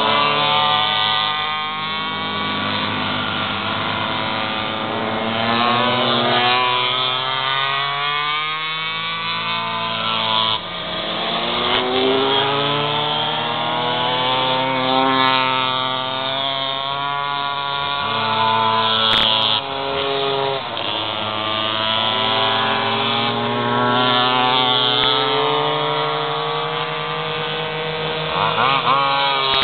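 Several small two-stroke pocketbike engines racing, overlapping, each revving up and falling back as the bikes accelerate and brake through the turns. There is a single sharp click about two-thirds of the way through.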